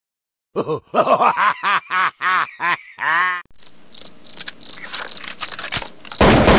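Cartoon sound effects over a title card. First comes a run of short squeaky pitched sounds bending up and down, then cricket chirps about three a second. A loud rushing noise starts just before the end.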